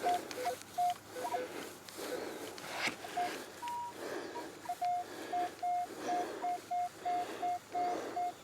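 Minelab Equinox metal detector sounding short target beeps, first scattered at a few different pitches, then from about halfway a steady beep at one pitch about three times a second, signalling a buried metal target. A soft swishing comes and goes in a slow rhythm under the beeps.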